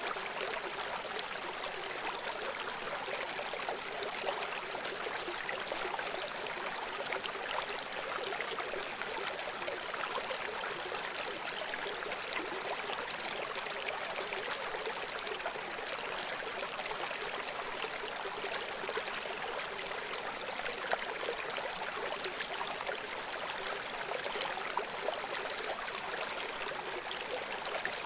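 Steady rushing of running water, like a stream, even throughout with no surges, light and hissy with little deep rumble.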